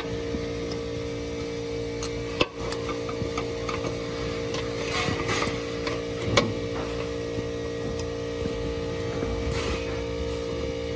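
A steady machine hum holding several fixed pitches, with a couple of sharp metal clicks, about two and a half and six and a half seconds in, and some rustling from a socket being worked up under the engine onto the oil pressure switch.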